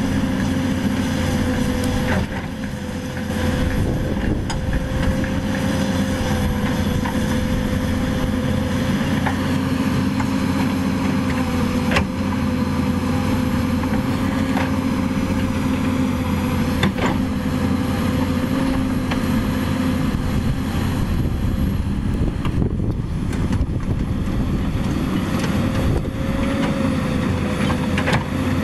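Caterpillar 320D hydraulic excavator's six-cylinder diesel engine running steadily under digging load, with a constant whine over the engine drone. A few sharp knocks come from the bucket working the soil.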